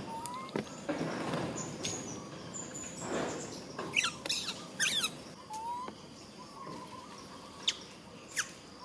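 Young long-tailed macaques squeaking and chirping in short, high calls, some rising in pitch, with a cluster of squeaks in the middle and two brief chirps near the end. Rustling in dry leaves comes in between.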